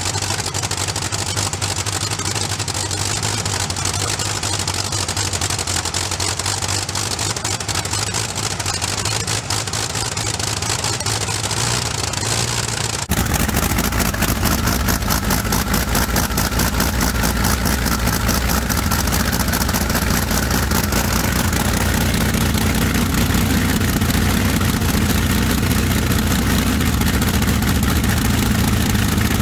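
Rolls-Royce Merlin 25 V12 aero engine running steadily on its test stand. About halfway through the sound steps up suddenly, louder and deeper, and then holds steady.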